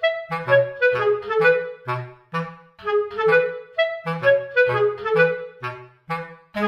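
Background music: a bouncy clarinet melody over a short repeating bass line.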